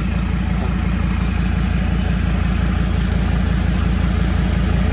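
2006 Mercedes Sprinter van's engine idling steadily with an even low rhythmic pulse.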